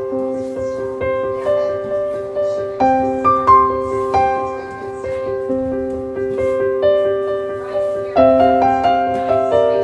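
Background piano music: single notes and chords struck and fading, in a slow, gentle melody.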